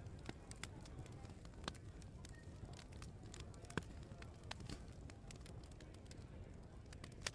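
Open wood fire crackling: irregular sharp pops and snaps, a few louder ones, over a steady low rumble.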